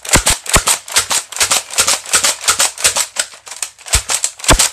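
Pump-action Nerf Rampage blaster slam-firing: the pump slide is worked rapidly back and forth with the trigger held, giving a fast run of plastic clacks about four to five a second.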